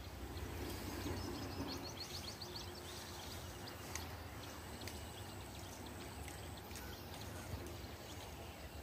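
Faint outdoor ambience: a low steady rumble with faint high chirps, loudest in the first couple of seconds.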